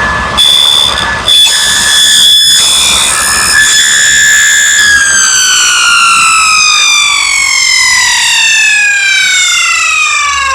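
Table saw with a dado blade stack running at speed with a steady high whine. About five seconds in it is switched off, and the whine falls steadily in pitch as the blade spins down.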